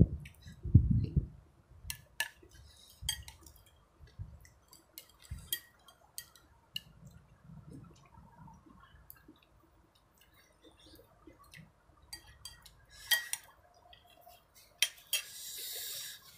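Chopsticks and a spoon clicking and scraping against a ceramic soup bowl while noodle soup is eaten, with a few low thumps, the loudest about a second in. Near the end, a steady papery rustle of a tissue being handled.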